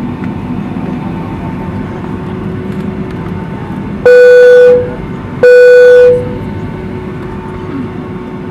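Steady engine noise inside a Boeing 757 cabin as the airliner taxis, broken by two loud identical electronic tones, each under a second, about a second and a half apart.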